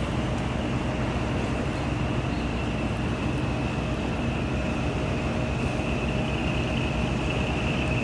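Boat engine running steadily: a low hum with a high whine over it that grows a little stronger near the end.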